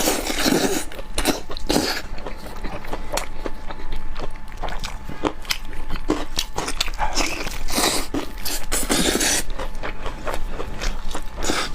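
Close-miked eating: a person biting and chewing meat off spicy ribs, with many short wet smacks and clicks and a few longer noisy stretches.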